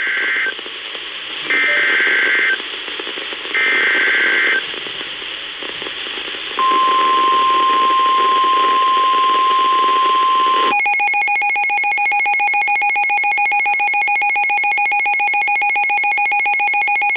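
NOAA Weather Radio Emergency Alert System alert, heard over a hiss of radio static. It begins with three one-second bursts of warbling SAME data tones about a second apart. A steady single-pitch 1050 Hz warning alarm tone follows for about four seconds. About ten seconds in, a loud, rapidly pulsing alarm beep takes over.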